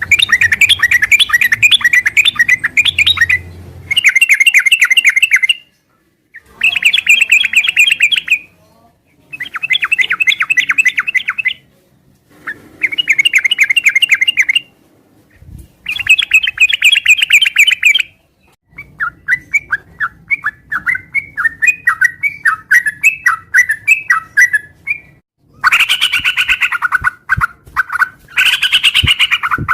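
Yellow-vented bulbul (trucukan) singing loudly and vigorously: repeated bouts of rapid chattering notes, each two to three seconds long with short pauses between. In the last few seconds the phrases run together with hardly a break.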